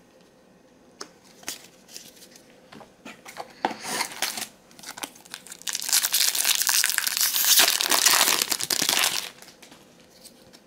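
A booster pack's foil wrapper crinkling loudly in the hands for about three and a half seconds, after a few soft taps of cards laid on a play mat.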